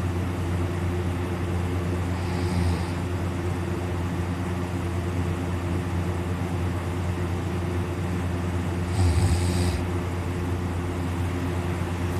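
A man snoring in deep sleep: two loud snores about seven seconds apart, over a steady low hum.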